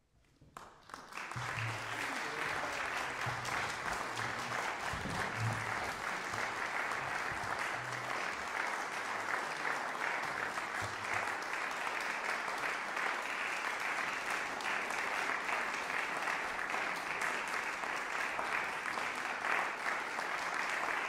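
Audience applauding, starting about a second in, swelling quickly and then holding steady.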